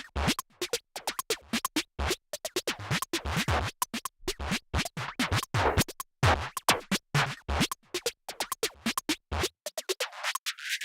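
Background music with a fast, choppy beat of short sharp hits. Near the end the low end drops away for a moment, as if filtered out.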